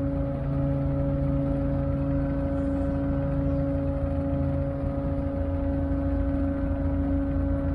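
A docked car ferry's diesel engines running steadily: a low rumble with a constant hum.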